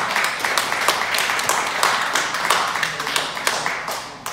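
A small group clapping in applause, thinning out and fading near the end.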